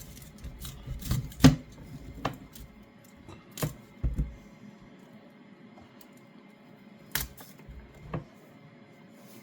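Kitchen knife cutting vegetables on a chopping board: a few separate, irregular knocks, the loudest about a second and a half in.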